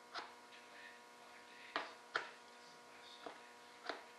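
Short scrapes of a spreader working Bondo body filler across a primed composite panel, about five strokes at uneven intervals, over a steady electrical hum.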